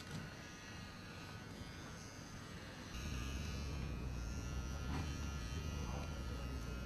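Electric hair clippers buzzing steadily as they shave a woman's head down to stubble. The buzz gets louder about three seconds in.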